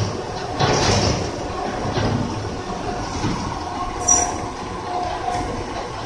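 Biomass carbonization furnace machinery running: a steady mechanical rumble and rattle with a few clanks, and a brief high metallic squeal about four seconds in.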